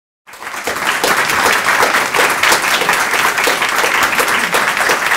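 Audience applauding: many people clapping at once, a dense, steady sound that starts suddenly just after the beginning.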